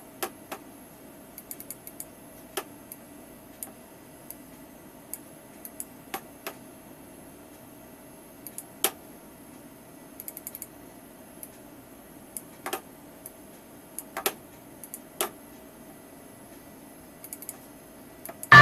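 Scattered light clicks and ticks at irregular times, a few in quick clusters, over a faint steady hum.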